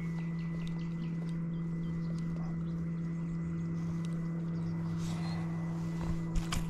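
A steady low hum at one unchanging pitch, with a few quick knocks near the end.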